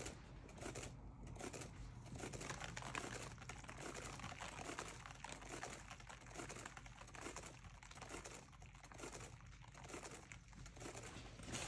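Faint rattling and whirring of a painting turntable spinning a canvas fast, pulsing softly about once or twice a second as it turns.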